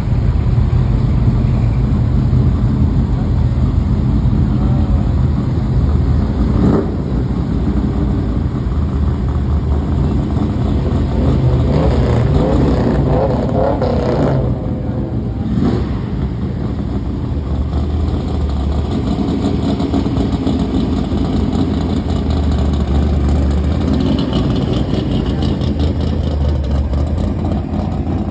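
Engines of classic American cars running as they drive slowly past one after another, a steady low engine sound throughout.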